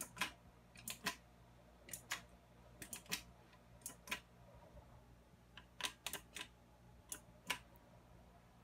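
Faint, irregular clicks and taps, roughly two a second, over a steady low electrical hum.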